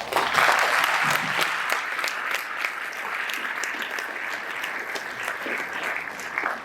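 Audience applauding: many hands clapping together. It starts suddenly, is loudest in the first second or so, then goes on at a steady level.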